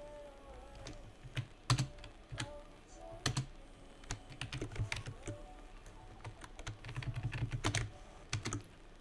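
Typing on a computer keyboard: irregular keystrokes with short pauses, and a quick run of keys about seven seconds in.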